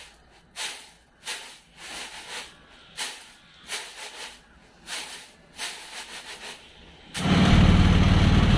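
Repeated swishing whooshes, about three every two seconds, from something waved back and forth close to the microphone. About seven seconds in this cuts off suddenly and a loud, steady low rumble of a moving vehicle takes over.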